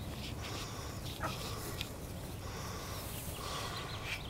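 Nigerian dwarf goat kids bleating in several short calls over a steady low rumble, with a couple of sharp clicks in between.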